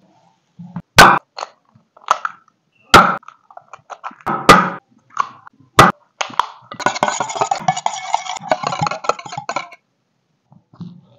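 Eggs knocked sharply against a stainless steel bowl to crack them, four loud knocks with light clatter between, then a wire whisk beating eggs in the small steel bowl, a fast scratchy rattle lasting about three seconds.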